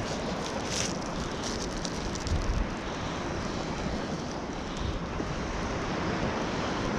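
Wind buffeting the microphone over the wash of sea waves on the shore, steady, with a brief low gust about two and a half seconds in.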